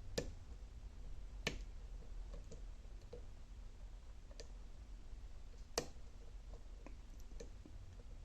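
Lock pick and tension wrench working the pins of a dimple lock: faint small metallic ticks throughout, with three sharper clicks, near the start, about a second and a half in, and near six seconds, over a low steady hum.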